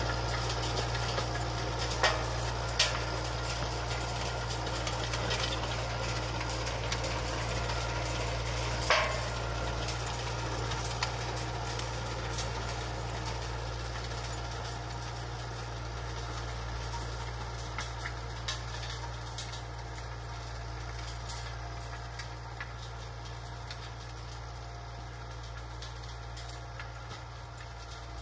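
John Deere 6400 tractor's four-cylinder diesel engine running steadily under load while driving an Alpego rotary harrow through stony soil, growing gradually fainter as it moves away. A few sharp knocks stand out, loudest about two and nine seconds in.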